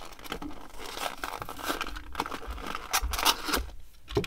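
Plastic blister pack and cardboard card of a 1:64 diecast car crinkling and tearing in irregular crackles as the car is worked free by hand, with a sharp click near the end.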